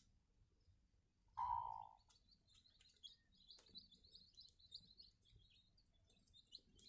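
Faint, rapid high peeping of newly hatched chicks under a brooding hen, running on from about two seconds in. A brief louder, muffled sound comes just before the peeping starts.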